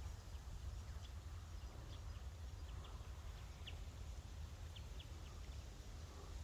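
Faint, scattered short high chirps of small finches calling in a mixed flock of goldfinches and chaffinches, over a steady low rumble.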